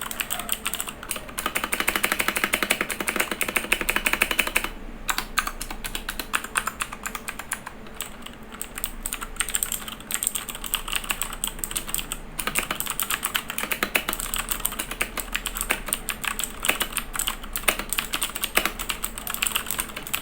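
Typing on a Royal Kludge RK61 60% mechanical keyboard with clicky blue switches: a fast, continuous run of sharp clicks, densest for a couple of seconds near the start, with a brief pause about five seconds in.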